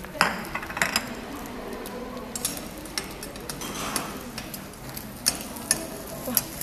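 Two metal spatulas scraping and clicking on a hot iron teppanyaki griddle while stir-frying rice, over a faint sizzle. The clicks and scrapes are irregular and sharp: two strong ones near the start, then several a second from about two and a half seconds in.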